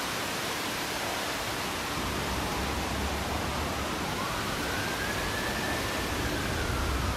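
Steady outdoor background noise, an even hiss. About two seconds in, a low rumble joins it, and near the end a faint tone rises and falls.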